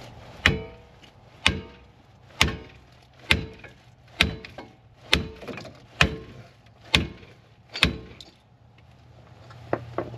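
Nine hard blows from a 3-pound hammer on the steel front wheel hub, a little under one a second, each with a short metallic ring, struck to jar a pressed-in wheel bearing loose.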